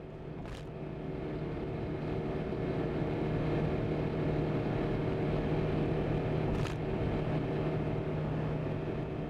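A car driving on a snowy road, heard from inside: a steady engine hum with road and wind noise that builds a little over the first few seconds, and two short clicks.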